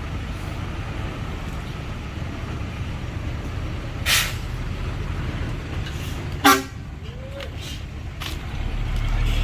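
Heavy diesel engines of a dump truck and bulldozer running steadily with a low rumble. A short, sharp burst comes about four seconds in, and a brief, louder horn toot about six and a half seconds in.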